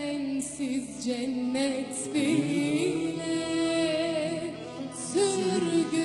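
Live Turkish song: a woman singing long, wavering, ornamented notes over a folk instrumental ensemble.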